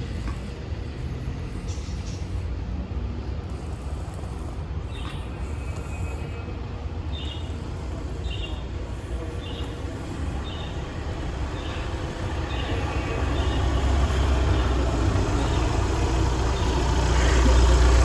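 Low, steady rumble of road traffic that grows louder near the end, with a short faint high sound repeating about once a second in the middle.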